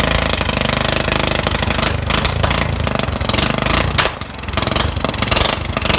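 Straight-piped John Deere lawnmower engine running loud just after starting, a rapid, unmuffled exhaust rattle with no muffler; it dips briefly about four seconds in.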